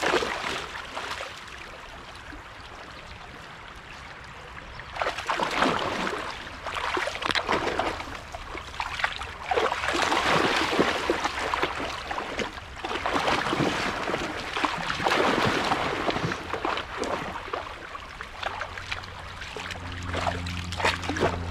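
Dogs wading and splashing through a shallow stream, water sloshing and spraying in repeated surges over the running stream. A low steady hum comes in near the end.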